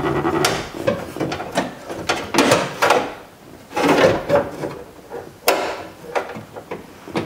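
Window regulator and motor assembly being handled and fitted inside a truck's steel door shell: irregular metal clunks, knocks and scrapes, the loudest hits about two and a half, four and five and a half seconds in.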